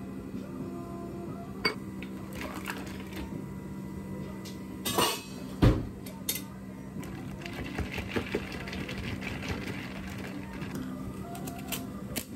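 Iced drinks being made: ice and espresso clinking in plastic cups and utensils knocking on the counter, over a steady low hum. A loud knock comes about five and a half seconds in.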